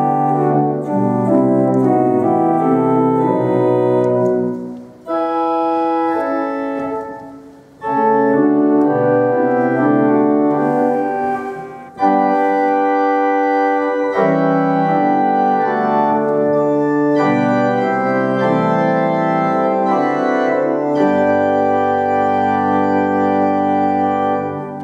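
Viscount Physis digital organ playing slow, sustained chords on its Great diapason stops through loudspeakers. The phrases break off briefly about five, eight and twelve seconds in.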